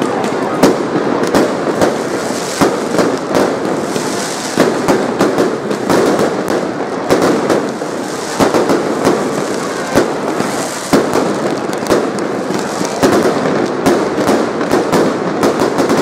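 Aerial fireworks display: a continuous barrage of bangs and crackling, shells bursting irregularly and overlapping with no pause.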